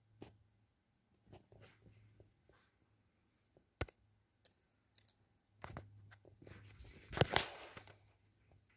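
Handling noise from a phone: scattered light clicks, one sharp click about four seconds in, then louder rubbing and crunching for about two seconds near the end as the phone is swung around.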